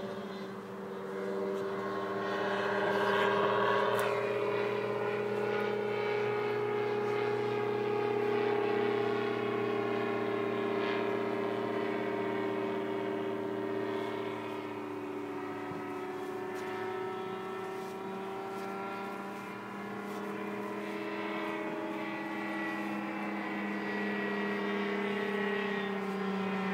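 Rotax 503 two-stroke twin and propeller of a Thruster microlight flying overhead, a steady drone whose pitch slowly drifts down and then back up as it passes.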